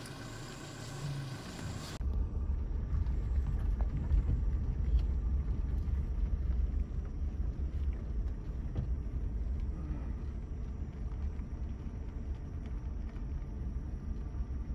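Steady low rumble of a vehicle driving, which starts abruptly about two seconds in after a short stretch of quieter background.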